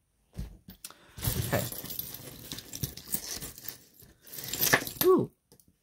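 Metal jewelry pieces jangling and clinking against each other as they are rummaged through by hand, with a louder jangle near the end.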